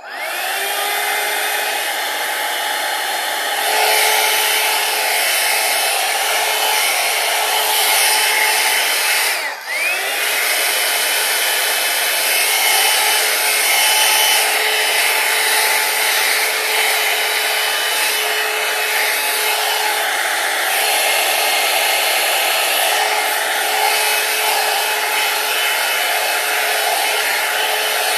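Hair dryer switched on, its motor whine rising as it spins up, then blowing steadily. About nine seconds in it cuts out for a moment and spins up again.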